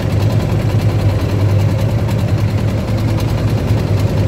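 Boat engine running steadily, a low, even drone.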